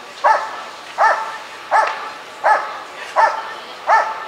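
German Shepherd barking steadily at a helper in the blind, six even barks about three every two seconds: the hold-and-bark of a protection routine.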